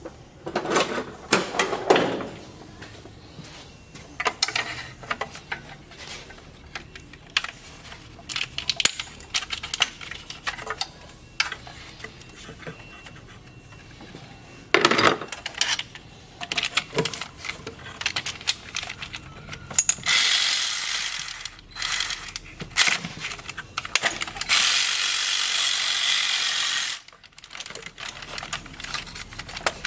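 Metal hand tools clinking and knocking, with some ratcheting, during work on a VW Beetle. There are two spells of steady hissing, like a spray or air blast, about two-thirds of the way through and again near the end.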